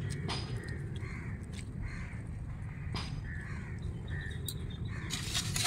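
Crows cawing again and again in short, harsh calls over a steady low hum, with a sharp clatter near the end.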